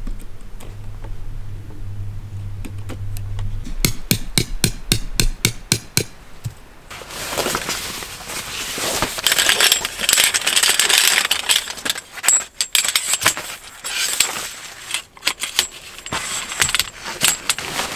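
A low hum at first; then a folding camp cot is taken out of its fabric carry bag: a quick row of clicks, then loud rustling of the cot's nylon fabric with the aluminium poles clinking and rattling against each other.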